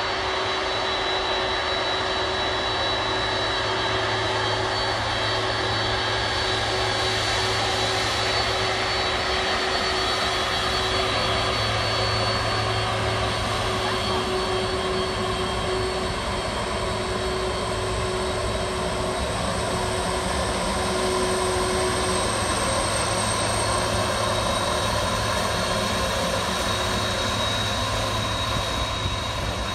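Boeing 767-300ER's twin turbofan jet engines at taxi idle as the airliner taxies past: a steady jet whine with a high whistle over a lower hum, easing slightly near the end.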